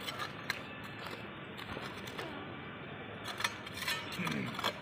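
Small steel mason's trowel scraping loose soil in a small dug hole, with a few light clicks of the blade against earth and grit.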